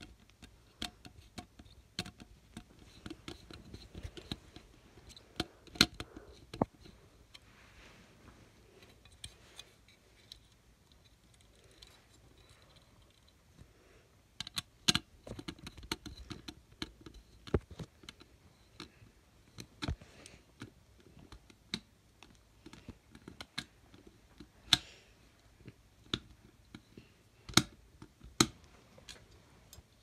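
Screwdriver working the terminal screws on a fire alarm strobe's metal mounting plate: irregular small clicks and scrapes of metal on metal, with a few sharper clicks scattered through.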